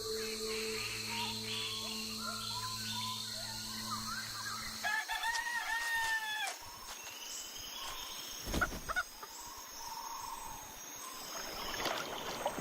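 A rooster crowing once, a long call of about a second and a half that rises, holds and falls, as at daybreak. Small birds chirp over a low steady drone before it, and a short loud thump comes a few seconds after.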